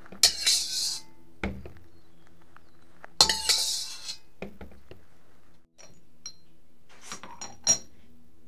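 A metal spatula scraping twice around a stainless steel wok, each scrape a short harsh rasp. Near the end a ceramic spoon clinks about four times against a small ceramic seasoning jar, with a steady low hum underneath.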